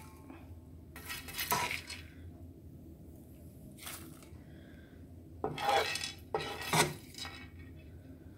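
A spoon scraping popcorn across a non-stick frying pan and tipping it into a stainless steel bowl, in several short bursts of scraping and clatter.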